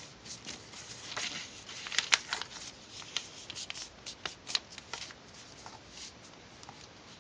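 Paper being handled, giving irregular crisp rustles and taps, loudest about two seconds in and thinning out near the end.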